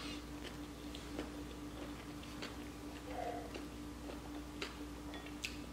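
Quiet chewing of a mouthful of ramen noodles, with a few soft clicks scattered through it over a steady low hum.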